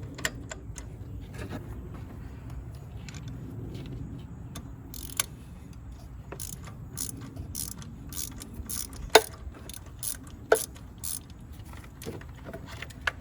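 Hand socket ratchet clicking in short, irregular strokes as it loosens spark plugs, with a low steady hum underneath.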